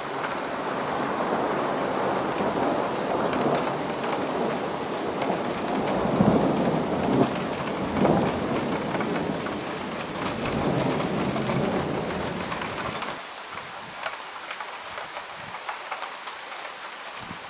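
Steady rain with drops ticking on nearby surfaces, under a long roll of thunder that builds, peaks about halfway through, and dies away about three-quarters of the way through.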